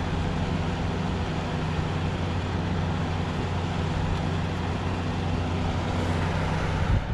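Kool King window air conditioner's fan motor running on low fan with the case off, a steady hum with the rush of air from the blower and condenser fan; the compressor is not yet running.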